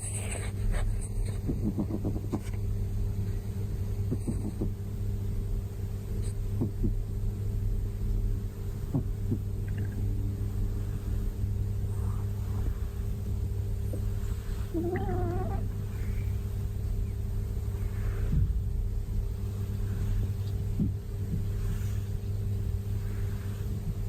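Cat giving a short, wavering sleepy vocalisation about fifteen seconds in, over a steady low hum.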